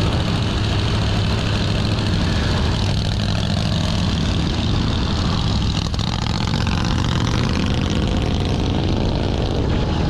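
1948 Harley-Davidson Panhead chopper's V-twin engine running steadily, with a brief dip about six seconds in.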